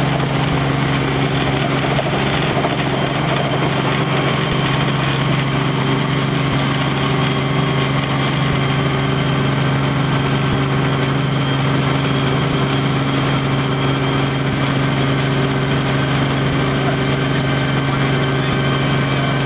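Light helicopter's engine and rotor heard from inside the cabin: a loud, steady drone with a strong low hum, unchanged as the helicopter lifts off the pad and flies out over the sea.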